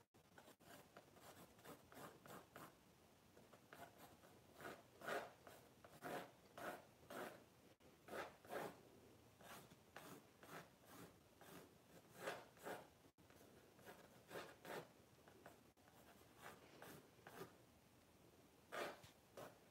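A pencil scratching across a white painting board, sketching in the layout of a still life before painting: faint strokes in short runs of a few at a time, with pauses between.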